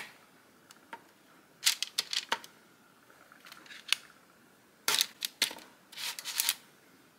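Light clicks and scrapes of cookie dough portions being handled and set down on a baking pan, in a few short clusters with quiet gaps between them.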